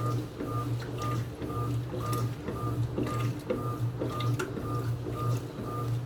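Electrolux Essential Care LES09 washing machine running with a regular pulsing motor hum, about two pulses a second, each with a short whine, and a few light clicks.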